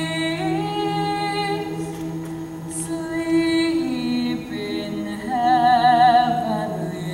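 A cappella choir of mixed voices holding a steady sustained chord beneath a female solo voice singing slow, long held notes with vibrato. The solo swells loudest about five to six seconds in.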